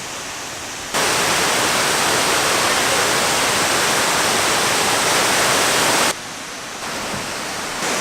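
Waterfall: falling water making a steady, even rush. Its level changes abruptly, jumping louder about a second in and dropping back about six seconds in.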